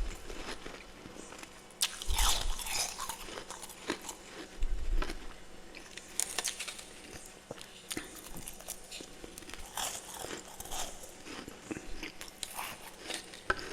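Close-up bites and chewing of humidifier freezer frost: irregular crisp crunches and crackles, with louder bites about two seconds in and again around four and a half seconds in.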